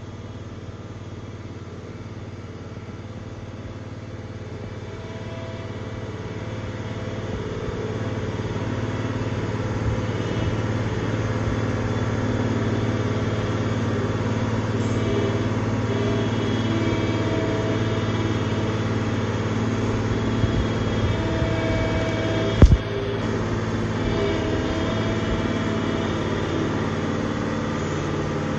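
Engine of a Terramite compact loader-backhoe running steadily, growing louder over the first several seconds and then holding an even note, with one sharp knock late on.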